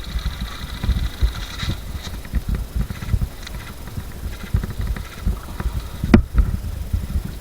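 Irregular low thumps and rustling of movement, with one sharp crack about six seconds in.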